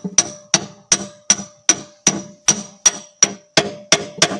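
A hammer tapping a splined steel lever onto its splined shaft in the loader's steering linkage. It strikes evenly about a dozen times, nearly three blows a second, and each blow rings with a high metallic ring.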